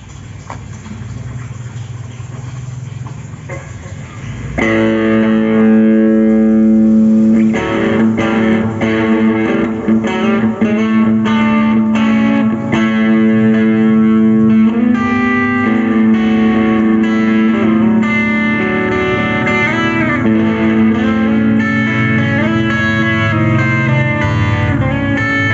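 Schecter Banshee 6 FR SGR electric guitar played with overdrive, heard through a smartphone microphone: picked notes and sustained, ringing chords. It gets much louder about four and a half seconds in.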